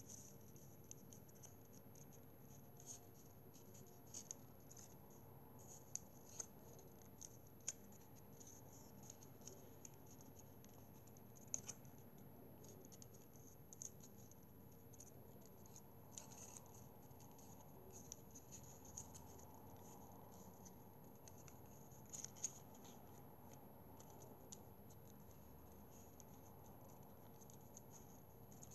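Faint crinkling and rustling of thin origami paper being folded and creased by hand, with small crisp ticks at irregular moments.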